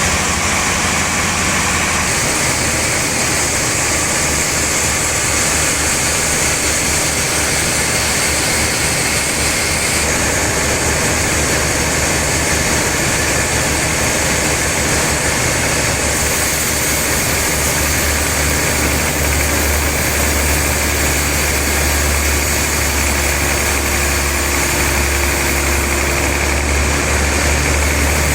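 Sawmill machinery running steadily: a constant low motor hum with an even high hiss, with no breaks or sudden changes.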